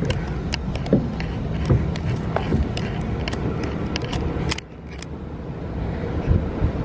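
Sharp clicks and taps from walking with a handheld camera, over a low rumble. About four and a half seconds in, the clicking stops and the sound drops to a steady city hum with distant traffic.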